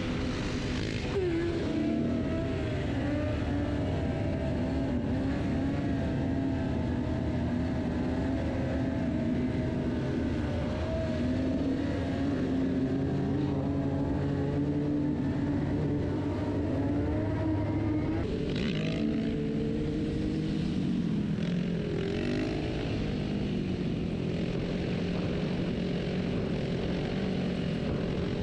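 Motorcycle engine running under way, its note rising and falling with throttle and gear changes, over a steady rush of noise.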